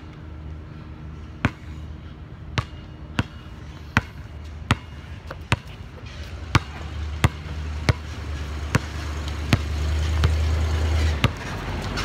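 A basketball dribbled on hard ground, a sharp bounce about every three-quarters of a second, growing louder as it comes closer. Under the bounces a low engine rumble swells from about seven seconds in and cuts off abruptly near the end: a catering truck pulling up and shutting down.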